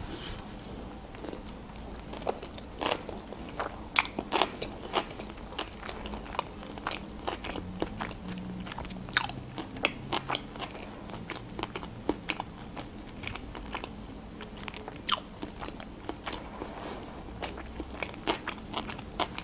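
Chewing a mouthful of sushi roll, with frequent sharp crunches and wet mouth clicks at an irregular pace.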